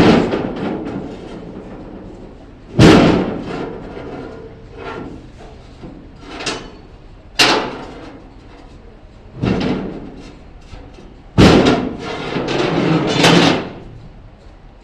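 A series of loud slams or bangs, about six, each a couple of seconds apart with a short ringing tail; the last runs on into a longer rattling clatter near the end.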